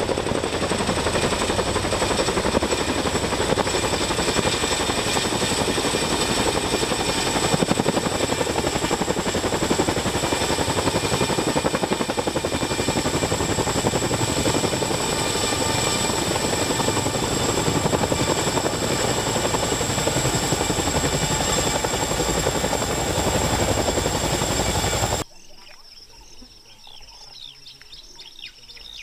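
Loud, steady engine noise with a high, even whine, cutting off abruptly about 25 seconds in to a much quieter background with faint chirps.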